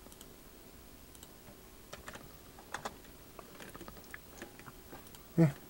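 Computer keyboard keys clicking sparsely and faintly, as someone looks something up on a computer. Near the end there is one short vocal sound from the person, louder than the clicks.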